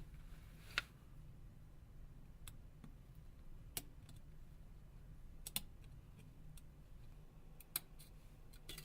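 Faint, irregular small clicks of a metal dental tool prying the bottom metal shielding lid off a Nokia Lumia 1320's engine board, about six sharp ticks spread over several seconds.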